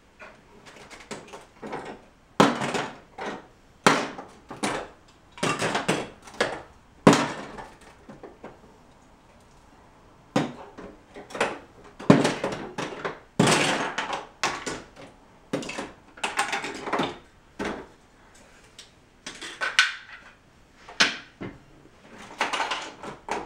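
Lego bricks being pulled apart and dropped onto piles of loose plastic bricks: irregular bursts of plastic clicking and clattering, with a quieter stretch of about two seconds a third of the way in.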